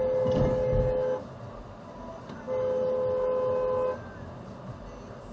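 Car horn sounded in two long blasts, each over a second, at a driver cutting into the lane ahead.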